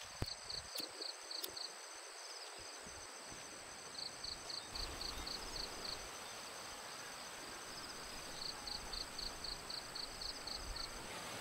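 Insects chirping in regular runs, about four chirps a second, over a faint, steady, high-pitched insect drone.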